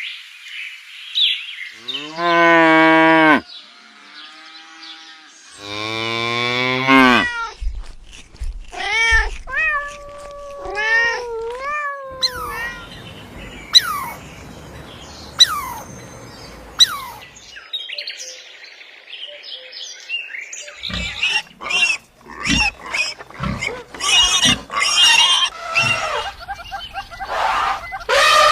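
A run of different animal calls, one after another. Two long, loud calls come about two and six seconds in, then shorter calls that slide in pitch, and a quick series of short, sharp calls in the last third.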